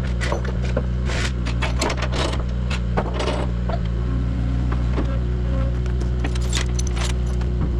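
A heavy machine's engine running steadily, with frequent sharp metallic clanks and rattles over the hum.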